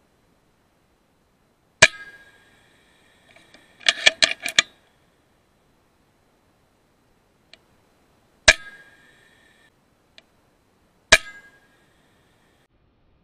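FX Impact M3 .22 PCP air rifle firing three slug shots, each a sharp crack with a short metallic ring, about two, eight and a half and eleven seconds in. Between the first two shots comes a quick run of four or five metallic clicks from the rifle's action.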